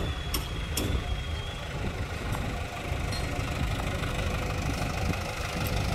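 Dump truck's diesel engine running steadily under the hydraulic hoist as the tipper body is raised, with a few sharp clicks in the first second and a steady whine from about halfway.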